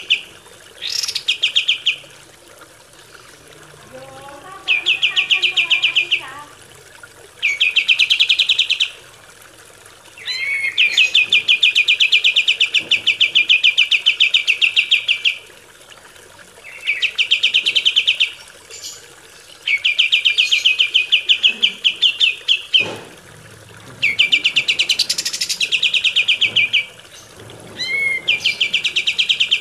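Kapas tembak bird singing a series of fast, rattling trills. Each trill is a rapid run of identical sharp notes lasting one to five seconds, separated by short pauses and an occasional brief chirp or whistle.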